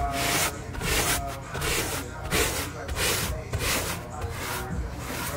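Stiff yellow-bristled detailing brush scrubbing cloth car-seat upholstery in quick, repeated back-and-forth strokes.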